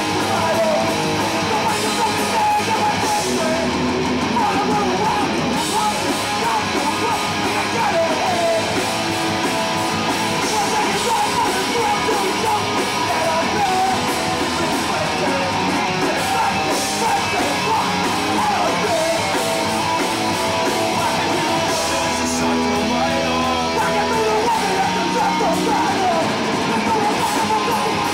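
Hardcore punk band playing live: distorted electric guitars, bass and drums at a steady loud level, with a vocalist shouting the song into a microphone.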